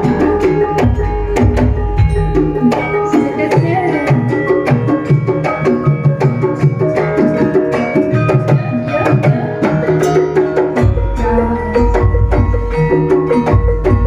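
Javanese gamelan music: a karawitan ensemble of bronze metallophones and gongs playing an interlocking melody over kendang drum strokes. The deep drum strokes drop out for much of the middle and come back near the end.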